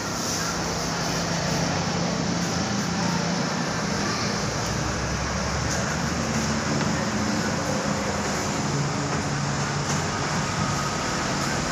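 Steady background noise: an even hiss over a low, continuous hum, with no distinct events.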